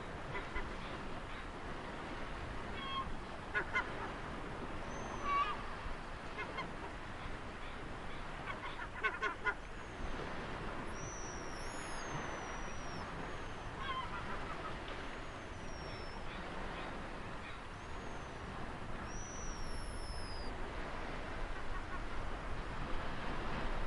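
Ocean waves washing steadily on a shore, with birds calling over them: a few short honking calls in small clusters and several high whistled calls that slide downward in pitch.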